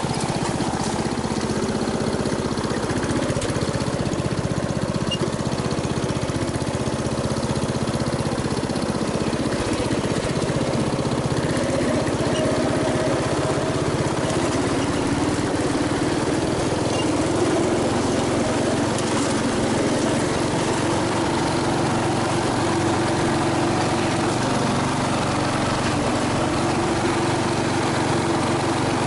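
MTD riding mower's engine running steadily on a test drive, its note shifting a little about halfway through.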